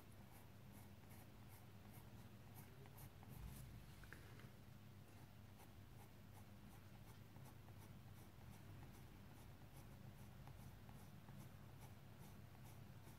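Coloured pencil scratching on paper in short, quick, repeated strokes, a few a second, faint over a low steady hum.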